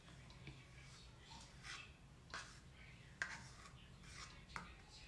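Faint rubbing and scratching of makeup tools, a brush and a bottle's wand applicator, with a few light clicks as they are handled.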